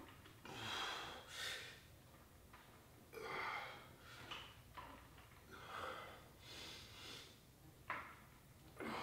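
A person breathing hard through the nose and mouth with the effort of lifting dumbbells: short, hissy exhales about every second or so, faint. A single sharp click comes near the end.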